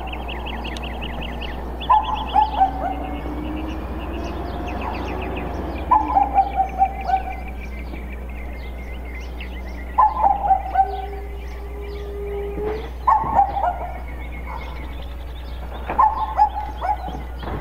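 Birds singing: one repeats a short phrase of several quick descending notes about every four seconds, and smaller chirps sound in between. Underneath is the low steady rumble of a garbage truck's engine as it approaches.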